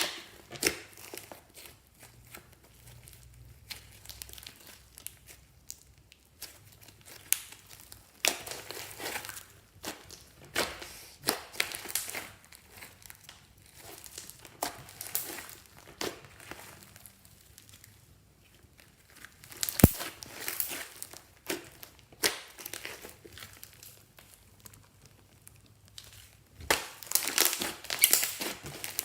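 Slime being worked by hand, stretched and squeezed, making irregular bursts of crinkly, crackling sounds, with a single sharp snap about twenty seconds in.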